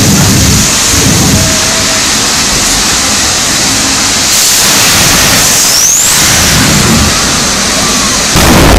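A market vendor's truck engulfed in flames, burning with a loud, steady rushing and crackling noise. About eight and a half seconds in comes a sudden loud low thump.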